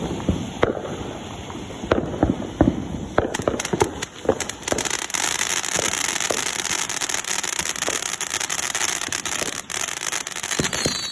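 Consumer fireworks going off: scattered sharp bangs and pops for the first few seconds, then a dense, steady crackling hiss from about five seconds in.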